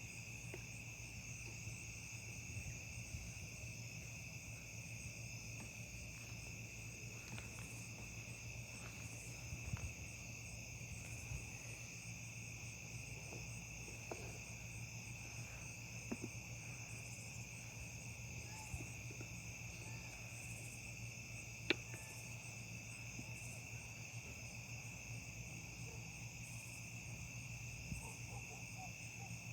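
Crickets chirping in a steady, unbroken night chorus over a low steady hum, with one sharp click a little past two-thirds of the way through.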